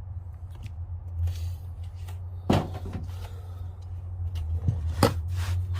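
Handling noises as large combination wrenches and their packaging are moved: scattered clicks and rustles with two sharper knocks, about two and a half and five seconds in, over a steady low hum.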